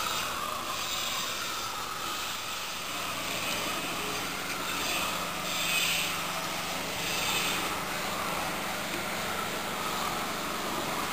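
Propane torch flame running with a steady roar while the bronze is heated for patination, with a few short surges of hissing near the middle.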